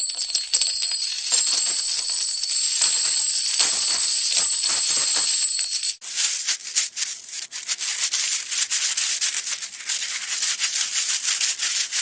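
Hanna-Barbera cartoon stock sound effect of coins jingling and clinking: a dense metallic shaking with a ringing tone held through the first half. It breaks off briefly about halfway, then carries on as quicker, separate clinks.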